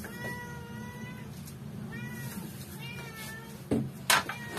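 A cat meowing three times: a long even call, then two shorter wavering ones. Near the end, two sharp chops of a meat cleaver through a whole raw chicken onto a wooden cutting board, louder than the meows.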